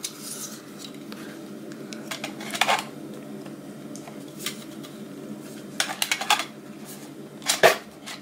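Scattered small plastic clicks and knocks from handling a Panasonic HC-VX980 camcorder and its lens hood, a few separate taps over a low steady hum.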